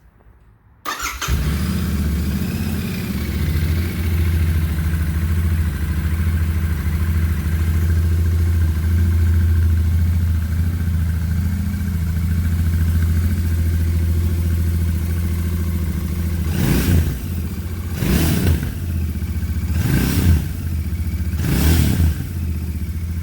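2019 Royal Enfield Continental GT 650's parallel-twin engine on its stock silencers, starting about a second in and settling into a steady idle, then revved briefly four times near the end. Pretty quiet through the stock exhaust, so much of the engine's own mechanical noise can be heard.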